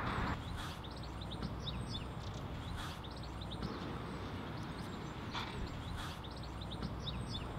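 Small birds chirping and twittering with many short, high notes, over a steady low background rumble.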